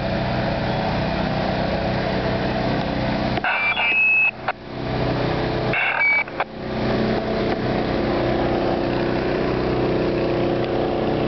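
A steady engine drone, typical of fire apparatus idling. About three and a half and six seconds in, it cuts out abruptly, and each time there is a short high beep.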